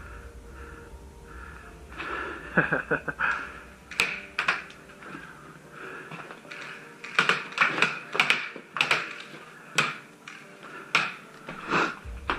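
Airsoft guns firing: sharp cracks singly and in quick runs of two to four shots, the heaviest run about seven to nine seconds in.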